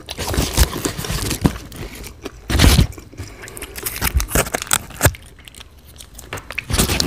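Close-miked eating: chewing and crunching of fast food, with paper wrapper crinkling. The loudest noise is a short burst about two and a half seconds in, and another comes near five seconds.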